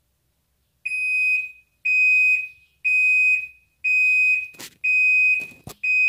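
Toshiba AW-J800A-PH fully automatic washing machine's end-of-cycle buzzer beeping six times, about once a second, in steady high-pitched tones, signalling that the wash is done. A few sharp clicks come between the last beeps.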